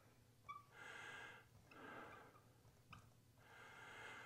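Faint breathing, about three slow breaths a little over a second apart, with a couple of tiny clicks.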